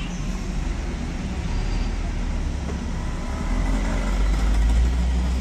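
Road traffic with a heavy vehicle passing close by, a low engine and tyre rumble that swells over the second half and is loudest near the end.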